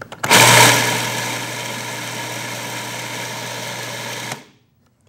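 Food processor with its S-blade grinding raw almonds and dried coconut toward a fine, flour-like powder. The motor starts, is loudest just after it starts, runs steadily with a low hum for about four seconds, then cuts off suddenly.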